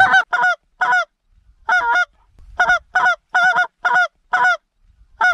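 Mouth-blown goose call sounding a run of about a dozen short honks and clucks in quick bunches, each note breaking in pitch, with short silences between.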